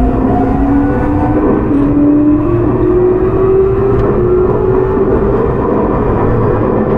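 Toei 6300 series subway train's Hitachi GTO-VVVF inverter and traction motors whining as the train accelerates. Several tones climb steadily in pitch, jumping to a new step now and then, over the running rumble of the car on the rails.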